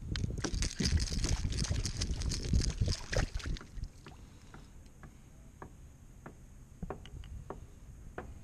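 Water splashing and sharp clicks as a freshly caught trout thrashes beside a kayak, for about three and a half seconds. Then quieter scattered taps and clicks of handling the fish.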